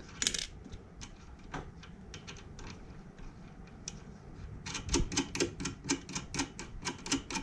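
Light clicking from the flat lap's center nut being turned by hand on the motor spindle to clamp a grit disc onto the backing plate: a few single clicks, then a quick run of about five clicks a second in the second half.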